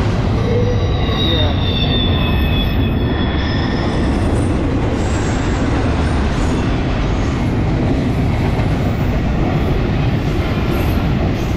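Double-stack intermodal freight cars rolling past at close range: a steady, loud rumble of steel wheels on rail, with high, thin wheel squeal during the first few seconds.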